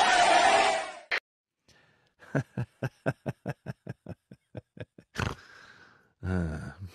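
Crowd shouting and cheering that cuts off about a second in, followed by a long run of rapid, evenly spaced laughing bursts, about six a second, and a short voiced sound near the end.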